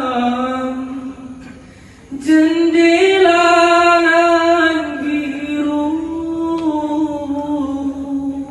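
A young man's solo voice singing a slow dikir verse through a microphone, in long held notes that waver and slide in pitch. The voice breaks off a little over a second in and comes back in loudly about two seconds in.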